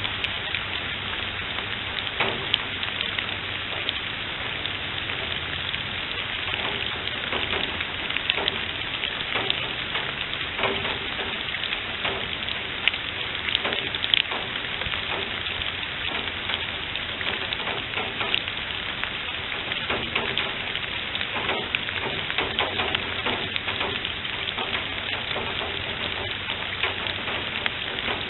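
Steady rain falling on leaf litter and standing water, with many single drops ticking sharply against the hiss.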